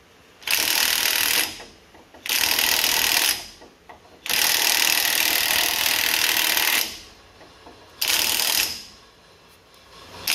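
Cordless electric impact wrench hammering on the pinion nut of a Jeep rear axle in four bursts, the third and longest about two and a half seconds. The nut is being run down to crush the pinion crush sleeve and set preload.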